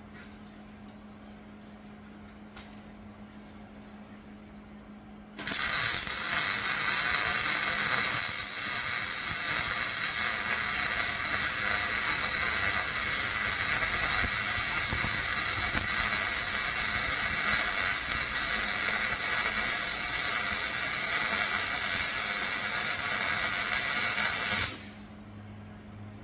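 Welder laying one long continuous bead on the steel flatbed: a loud, steady hiss that starts suddenly about five seconds in and cuts off near the end. A faint steady hum sits under it before and after.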